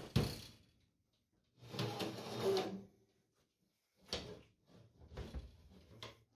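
Gloved hands rubbing and sliding over bare aluminium plate and steel linear-rail parts: four short scraping, rubbing bursts with gaps between them, the longest lasting just over a second.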